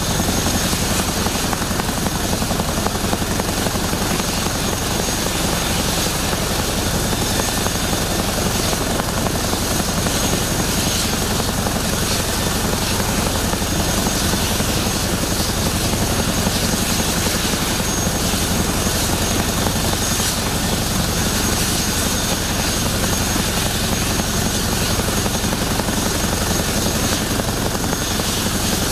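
Boeing CH-47 Chinook with its twin Lycoming T55 turboshaft engines running and its tandem rotors turning. The rotor beat is steady, with a thin high turbine whine over it.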